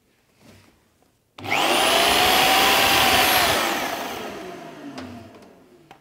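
A Titan TTB430VAC 1400 W wet and dry vacuum cleaner and a corded power drill plugged into its tool socket start up together about a second and a half in: the socket's auto-start switches the suction on with the tool. Both run for about two seconds with a high whine, then wind down and fade away over the next two seconds.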